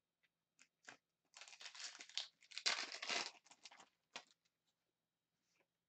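A 2018-19 Upper Deck Synergy hockey card pack wrapper being torn open and crinkled, a dense rustle starting about a second in and lasting a couple of seconds. A few light ticks come before it and a short click follows.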